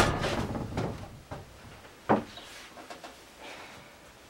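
Knocks and clunks of hands-on building work on the wooden kiln: a loud knock at the start with a short rattle after it, a few small clicks, and another sharp knock about two seconds in.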